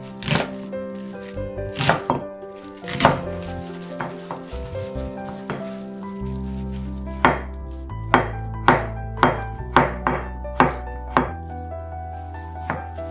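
Chef's knife chopping vegetables on a bamboo cutting board, first spring cabbage leaves and then cucumber and carrot. Each cut is a sharp knock, irregular at first, then steady at about two a second from around seven seconds in. Background music with a steady bass plays underneath.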